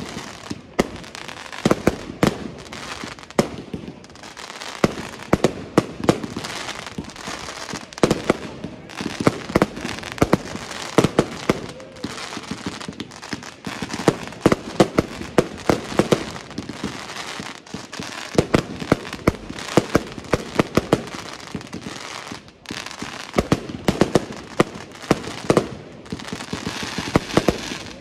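Aerial fireworks display: an irregular barrage of sharp bangs from launching and bursting shells, often several a second, with crackle and hiss between them.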